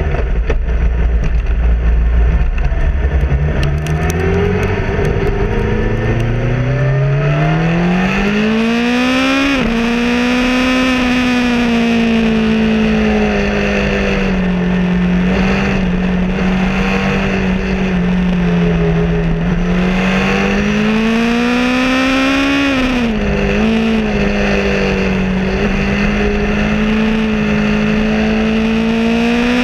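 Motorcycle engine heard from the bike being ridden, with wind rushing past at first. The engine note climbs steadily under acceleration, drops suddenly at a gear change about nine seconds in, then holds at a steady cruise. It climbs again and drops a second time a little past twenty seconds.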